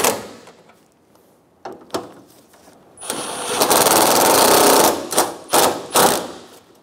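Cordless impact driver with a 10 mm socket running down the headlight's mounting bolts: a couple of light clicks, then one run of about two seconds with a high motor whine over the hammering, then three short trigger bursts to snug the bolts.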